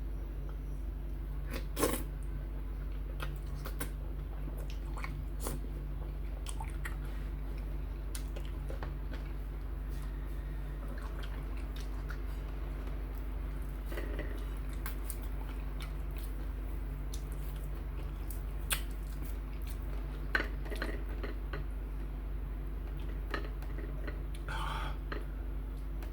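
Someone eating a meal of fufu and soup: quiet chewing and scattered clinks and knocks of dishes, the sharpest about 2 s in and near 20 s. A steady low hum underlies it.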